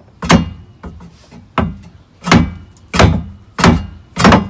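Hammer blows on a seized fuel-tank strap bolt under a 1999 Chevy Blazer, six heavy strikes about two-thirds of a second apart, each ringing briefly. The bolt is not moving, which fits its bent shaft.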